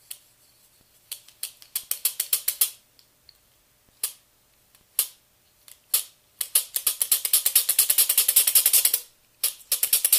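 The plastic gear train of a CD-ROM drive's tray-loading mechanism, worked by hand and clicking. A few quick runs of clicks and single clicks come first, then a steady run of about ten clicks a second from about six seconds in, broken by a short pause near the end.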